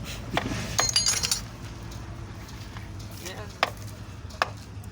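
Metal parts clinking and knocking during engine repair work: a cluster of ringing clinks about a second in, then two sharp single knocks near the end, over a steady low hum.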